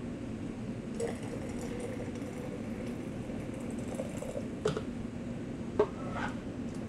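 Hot water poured from a plastic measuring cup into a glass jar of salt, with a few sharp knocks of the cup against the jar, the loudest near the end. A steady low hum runs underneath.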